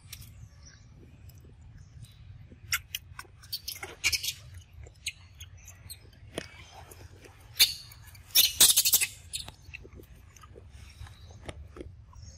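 A macaque biting into and chewing a mango: a series of sharp bites and smacks, with the loudest cluster about eight to nine seconds in.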